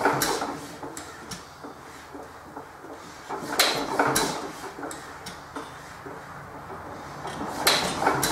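1914 Economy Model D hit-and-miss engine being coaxed to start: sharp metallic knocks come in pairs about every four seconds, with lighter clicks between, and it never settles into running. The owner suspects a fuel supply problem, such as debris in the check valve.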